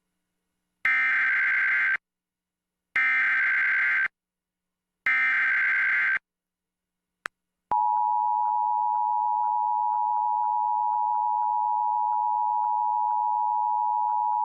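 Emergency Alert System SAME header: three one-second bursts of screeching digital data tones, then, about halfway through, the steady two-tone EAS attention signal begins and holds. It opens an AMBER Alert (child abduction emergency) broadcast.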